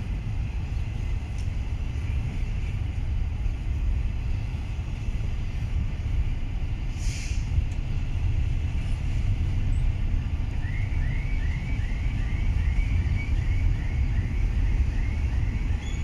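Double-stack intermodal container train rolling past: a steady low rumble of wheels on rail, with a brief hiss about seven seconds in. From about ten seconds in, a bird repeats a short high chirp about twice a second over the rumble.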